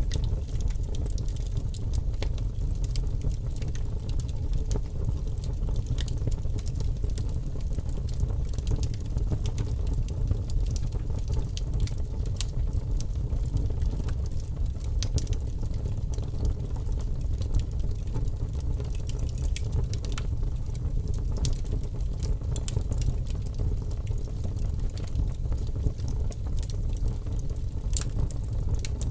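Wood fire burning with large flames: a steady low rushing of the flames with frequent sharp crackles and pops scattered throughout.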